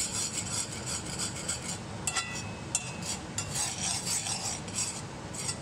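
Butter knife scraping and smearing butter across the bottom of a cast-iron skillet, a continuous scratchy rub made of many short strokes, with a couple of brief metallic rings about two seconds in.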